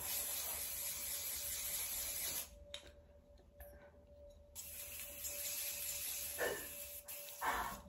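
Aerosol can of hair product spraying onto hair in two bursts: a hiss of about two and a half seconds, a pause, then a second hiss of about two seconds. The can is running low.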